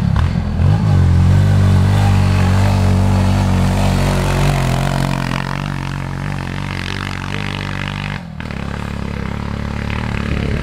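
Engine of a home-built racing tractor running steadily as a low drone. The sound breaks off abruptly for a moment about eight seconds in, then carries on.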